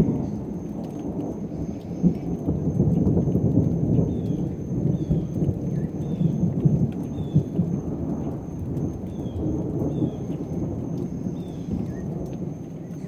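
Thunder from a thunderstorm rumbling low and rolling. It swells about three to five seconds in and eases off toward the end.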